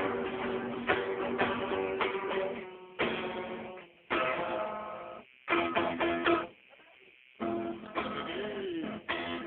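Guitar music, strummed chords that break off briefly a few times, with the longest pause about seven seconds in.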